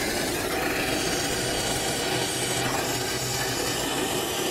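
Oxy-acetylene brazing torch burning with a steady, even rush of noise while it heats the copper joints of a heat pump's new reversing valve for brazing.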